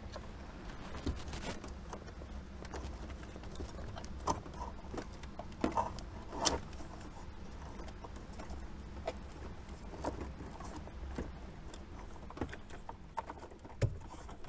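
Wiring rustling and plastic clicking and knocking as a Sony XAV-AX6000 head unit in its dash kit is pushed into a Jeep Wrangler JK's dash opening, with a few sharper knocks. The loudest knock comes about six seconds in. A low steady hum runs underneath.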